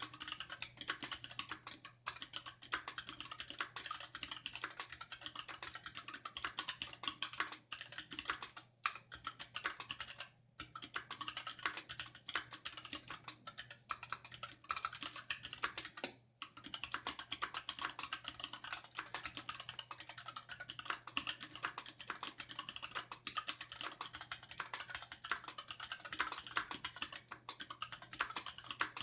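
Fast, continuous typing on a Varmilo VA68M compact mechanical keyboard with an aluminium case, Gateron Red linear switches and dye-sub PBT keycaps: rapid key clacks that stop briefly three times.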